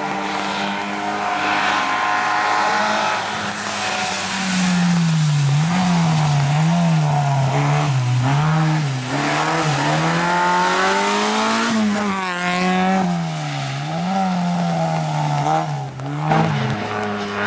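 Autobianchi A112 Abarth rally car's four-cylinder engine driven hard through a hairpin. It holds a steady note at first, then from about four seconds in the revs rise and fall about once a second with each lift and gear change, dropping away near the end.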